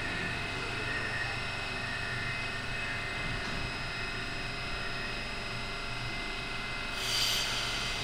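Metro train standing at the platform with its equipment humming steadily, several thin high tones held over the hum, while its doors slide shut. About seven seconds in, a short burst of air hiss.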